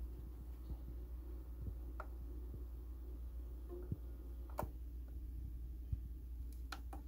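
Sony PS-X555 turntable running with the stylus in the groove of a vinyl record during a test after repair: a steady low hum with a few scattered sharp clicks, and no music clearly heard.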